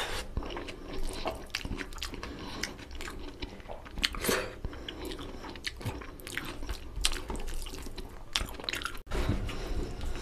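Close-miked wet chewing and lip-smacking of a mouthful of rice and chicken curry, a quick run of short clicks, with fingers squelching rice into gravy on a steel plate. The sound drops out for a moment about nine seconds in.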